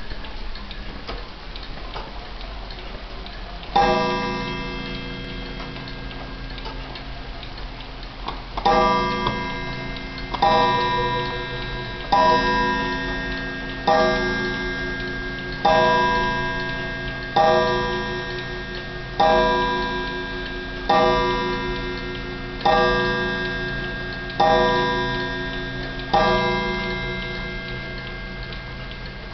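Circa-1920 Seth Thomas mantel clock ticking and striking twelve o'clock. Each strike rings out and fades: one about four seconds in, then after a pause eleven more, evenly spaced a little under two seconds apart.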